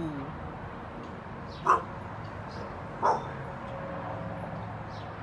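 American bully dog giving two sharp barks about a second and a half apart, alert barking at people down the street.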